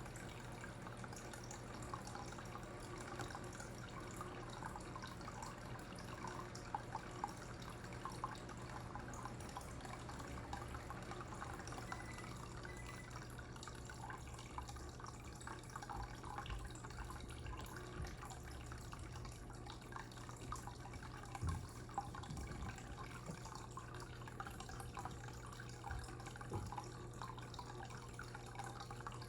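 Faint, steady trickling and dripping of water over a constant low hum, with a few soft knocks.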